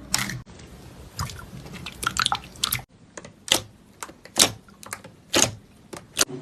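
Crunchy slime being squeezed and pressed: a run of small crackles, then several louder, separate crunchy snaps about a second apart.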